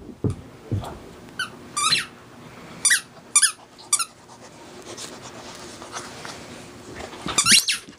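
Australian shepherd puppy whining in short, high, wavering squeals, about half a dozen spread through, with a couple of dull thumps in the first second.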